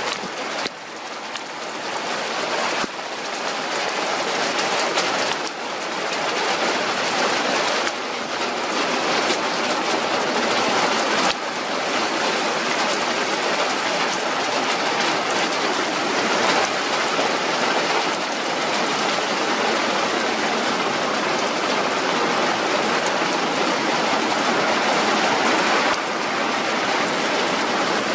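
Heavy rain falling: a steady, dense hiss that builds a little over the first few seconds and then holds.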